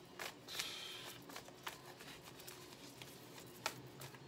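Tarot cards being handled: a brief sliding rustle of cards about half a second in, with a few light taps and clicks.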